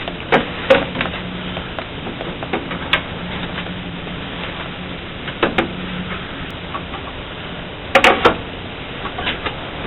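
Scattered knocks and clicks of wood and tools being handled on a table saw, the loudest pair about eight seconds in, over a steady hiss with a low hum.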